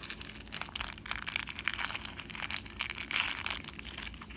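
Thin plastic packaging of a mochi squishy toy crinkling as it is handled and unwrapped: a dense run of irregular crackles.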